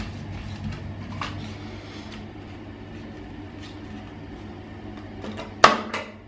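Small cardboard soap box being opened by hand, with light scraping and clicks of the card over a steady low hum, and one sharp knock a little before the end.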